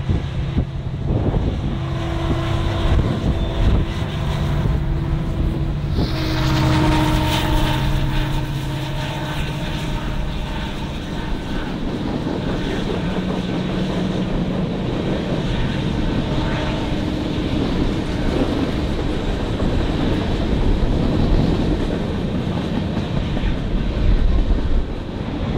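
Diesel-hauled train passing close by: a steady rolling rumble with a few held tones, getting brighter and fuller about six seconds in.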